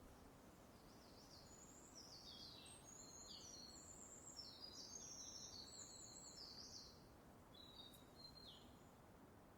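Faint birdsong: a run of quick, high chirps and short downward-sliding notes from about a second and a half in until about seven seconds, then a couple more near the end, over a faint steady outdoor hiss.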